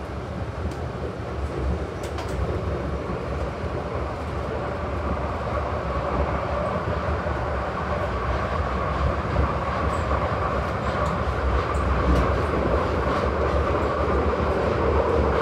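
Glasgow Subway train running through the tunnel, heard from inside the carriage: a steady rumble and rushing noise that grows gradually louder.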